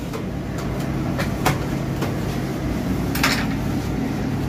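Commercial kitchen ambience: a steady low hum of extraction and fryer equipment, with a couple of sharp knocks of handled utensils or counter items about a second and a half in and a brief rustling scrape a little past three seconds.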